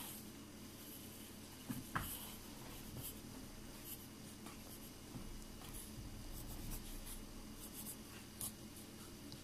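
Pencil scratching on paper in short, irregular strokes, faint, with a small tap about two seconds in.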